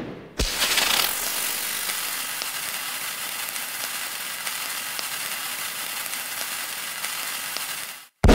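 A steady crackling hiss with faint scattered ticks, from the cursive-alphabet app's sound effects. It starts with a click after a loud burst dies away, and cuts off abruptly near the end, just before another loud burst.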